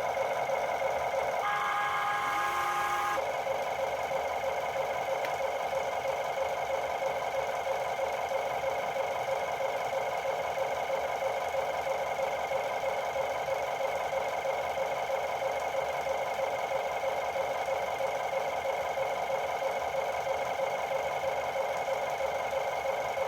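Toy vehicle's steady whirring buzz with no low rumble. A short, higher electronic tone cuts in about one and a half seconds in and lasts under two seconds.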